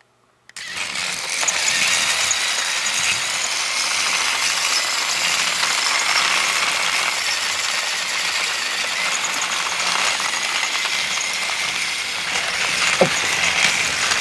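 Battery-powered TrackMaster Thomas toy engines running on plastic track: a steady mechanical whir of their small motors and gears. It starts about half a second in, as the engines are switched on, with a short click near the end.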